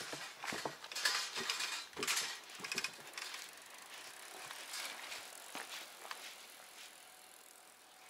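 A quick run of sharp clicks and short rattles, densest in the first three seconds and thinning to a few fainter clicks.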